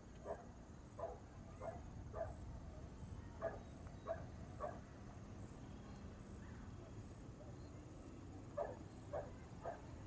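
A dog barking in short runs of three or four barks about 0.6 s apart, with pauses between the runs, over a low steady outdoor rumble.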